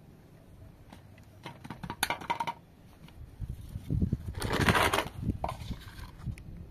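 Cookware being handled: a few light clinks and knocks, then low thuds and a short scraping rush about four seconds in.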